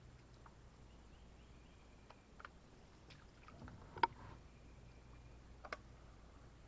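Kayak and paddle sounds: a few light knocks and clicks, the sharpest about four seconds in, over quiet background noise.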